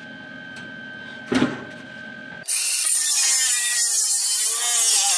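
MIG welder running a stitch weld on 18–19 gauge sheet-steel body panels: a steady, loud hiss that starts suddenly about two and a half seconds in and keeps going. Before it there is a faint steady whine and a single click.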